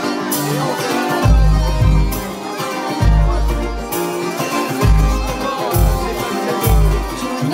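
Live band playing an instrumental passage led by a button accordion, with drums and a strong low beat about once a second.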